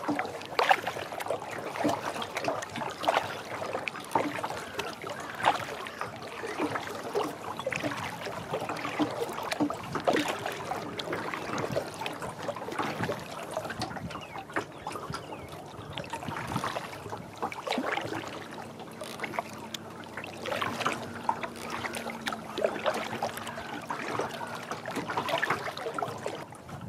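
Small lake waves lapping and slapping against the hull of a Future Beach Adventure 8.6 kayak, a constant irregular patter of little splashes and trickles. A faint steady hum joins in for a few seconds past the middle.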